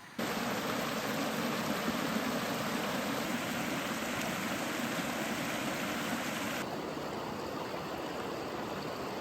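Steady rushing noise, even and continuous, with a slight drop in level about two-thirds of the way through.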